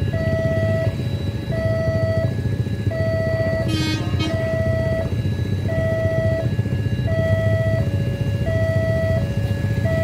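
Railway level-crossing warning siren sounding a repeating two-tone electronic alarm, a longer higher tone followed by a short lower one, about once a second, over a steady low traffic rumble.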